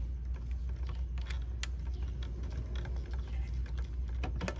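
Scattered light clicks and taps as fingers work the small latch handles on the rear doors of a wooden miniature truck box, over a steady low hum.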